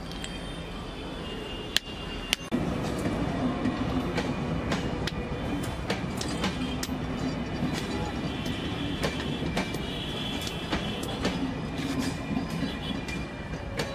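Two sharp hammer strikes on brick, then a train passing close by on the railway: a steady rumble with clicking wheels and faint squealing.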